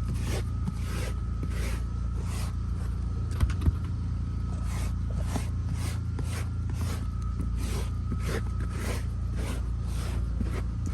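Lily pet-hair brush scraped in quick repeated strokes over car upholstery or carpet to pull out embedded dog hair, about two rasping strokes a second. A steady low hum runs underneath, and two sharp clicks sound about three and a half seconds in.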